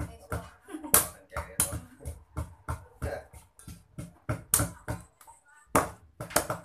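A cleaver chopping raw chicken on a thick wooden chopping block, mixed with a wooden pestle pounding in a clay mortar: sharp knocking strokes about three a second, with a short break near the end.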